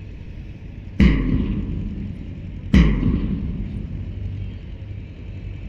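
Two loud bangs about two seconds apart, each dying away over about a second, over a steady low hum.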